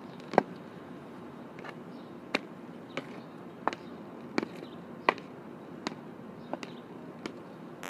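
Hockey stick blade tapping a ball from side to side on asphalt while stickhandling: sharp knocks, about three every two seconds.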